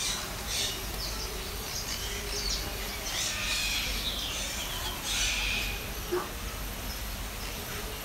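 Assorted birds chirping and calling, short high calls coming every second or so over a steady low background hum.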